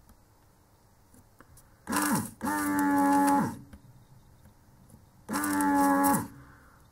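A man humming a drawn-out, thoughtful "hmm" twice, each hum held on one low pitch and dropping away at the end.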